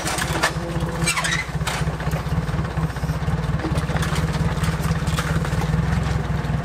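An engine running steadily at idle, a low pulsing rumble, with scattered metallic knocks and clatter over it.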